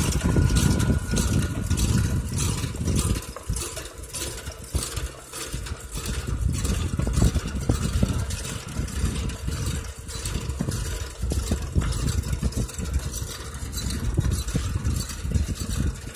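Tractor engine running steadily as it pulls a vegetable transplanter through the field.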